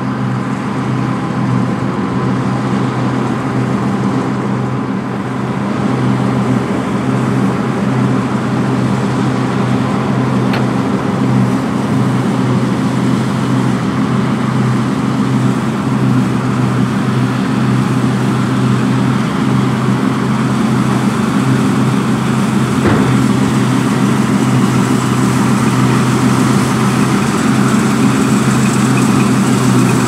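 New Holland CSX7070 combine harvester running steadily under load while cutting and threshing wheat: a constant engine hum over a hiss of machinery. It grows gradually louder as the combine comes closer.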